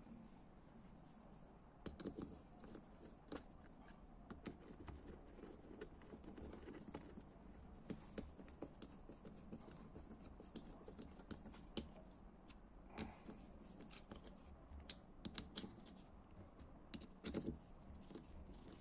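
Scattered light clicks and taps of small engine parts and hand tools being handled on a workbench, irregular and quiet between, with a louder cluster near the end.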